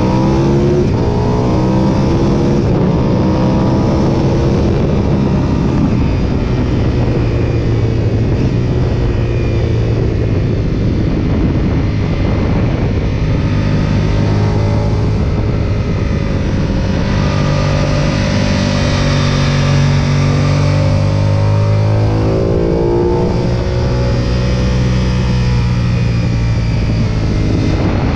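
Sport motorcycle's engine at full track pace, its pitch repeatedly climbing and dropping as the rider accelerates, shifts and brakes for corners, over a constant rush of wind.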